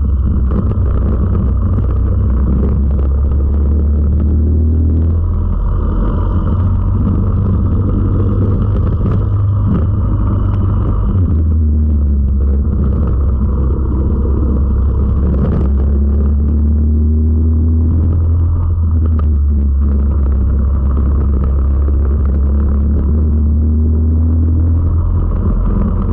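Four-stroke racing kart engine heard from onboard at race speed, a loud steady drone whose pitch rises again and again as the kart accelerates.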